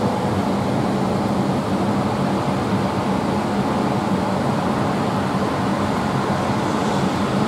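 Full swinging peal of five church bells cast by Giorgio Pruneri in 1903, tuned to a rising E-flat major scale. All five ring together in a steady, dense wash of overlapping tones.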